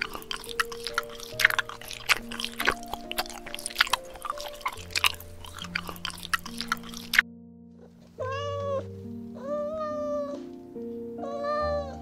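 A sloth chewing crisp lettuce: a quick, irregular run of crunching clicks over soft background music. After a brief pause about eight seconds in, a cat meows three times.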